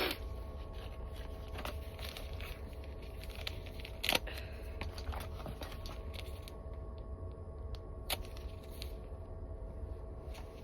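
Rustling, crinkling and small clicks of things being handled and rummaged through, with a louder crinkle about four seconds in, over the steady low rumble of a moving train.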